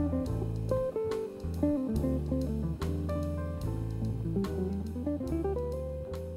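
Background music: plucked guitar over a steady bass line.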